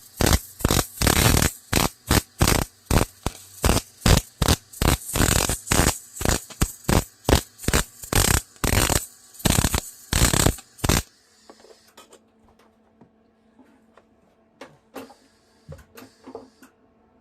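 Arc welding a steel bracket, the arc crackling in short bursts of about two to three a second, laid down as a run of quick stitches. The welding stops about eleven seconds in, leaving a few faint clicks.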